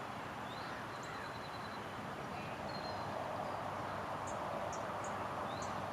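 Steady outdoor background noise with several short, high bird chirps and whistles scattered through it.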